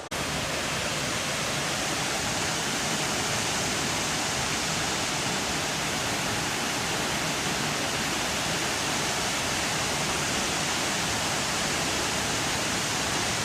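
Waterfall: water falling and pouring steadily, an even, unbroken rush of noise.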